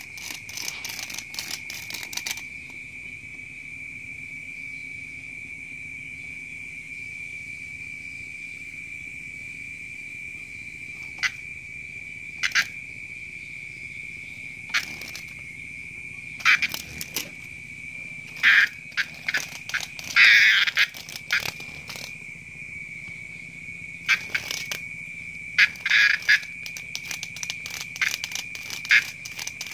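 A steady, unbroken high-pitched insect trill running under everything, with scattered short scratches and clatters of cats' paws swatting at an insect on bare wooden floorboards, busiest in the second half.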